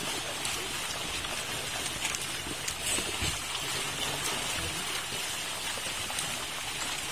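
Milkfish thrashing in a net being hauled up in shallow water: a steady patter of many small splashes.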